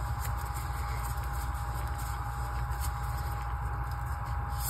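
Steady background hum and hiss with a faint constant high tone, and no distinct handling sounds.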